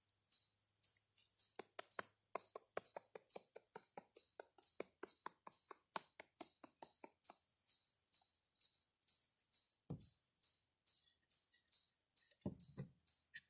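Faint, fast run of light ticks for several seconds as baking soda is shaken and tapped out of its cardboard box into a cast iron skillet, followed by a few dull knocks on a wooden table. A faint high pulse repeats about twice a second throughout.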